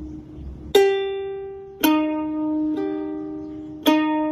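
Ukulele strings plucked by a cat's paw: four single notes, spaced unevenly, each ringing and fading before the next.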